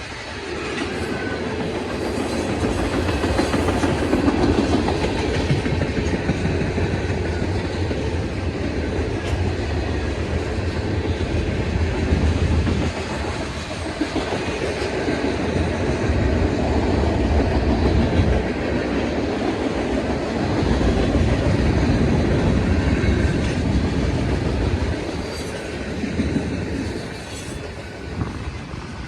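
A freight train passing, its cars rolling by in a continuous loud rumble that swells and eases several times and drops off near the end.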